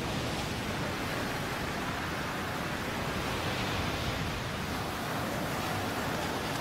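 Surf breaking over the beach: a steady rush of churning white water.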